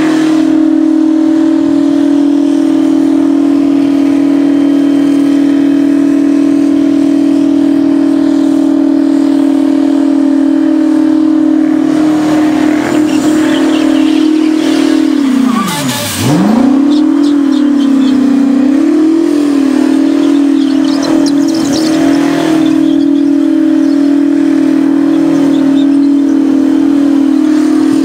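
Custom V16 twin-turbo engine in a Mack cab-over truck held at high, steady revs during a burnout, the rear tyres spinning. About halfway through the revs drop sharply with a short burst of hiss, then climb back, waver for a few seconds and settle at a steady high note again.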